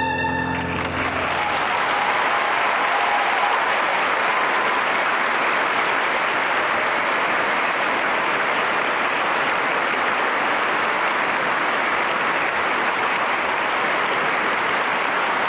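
A large crowd applauding steadily. The final violin note dies away about a second in.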